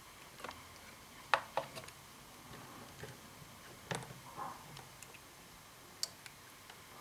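Quiet room tone with a handful of scattered, faint sharp clicks and light knocks, the loudest a little over a second in.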